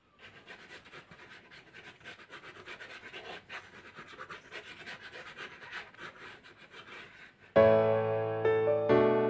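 Ballpoint pen scribbling quickly on paper: a rapid, irregular scratching of short strokes. About seven and a half seconds in, louder piano music starts, with chords struck about a second apart.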